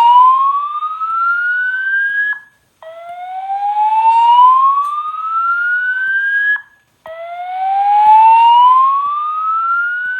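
EST-3 voice evacuation speakers sounding the whoop alert tone: a loud rising sweep of about three and a half seconds, repeated three times with short gaps. This is the alert tone that precedes the recorded evacuation message.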